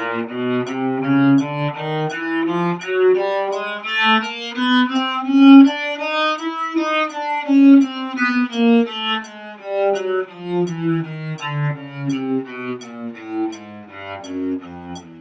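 Cello playing a chromatic scale starting on E with separate bows, one bow stroke per semitone. The scale climbs steadily to its top note about halfway through, then comes back down to the low E near the end.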